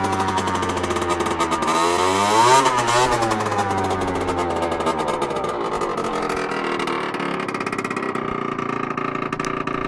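Derestricted Peugeot Jet Force 50 cc two-stroke scooter engine through a Tecnigas RS II exhaust. Its pitch rises to a peak about two and a half seconds in, falls back, and then the engine runs steadily.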